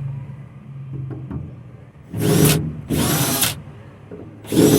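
Power drill/driver running in three short bursts, each opening with a rising whine as the motor spins up, while driving screws out of the wooden bed frame.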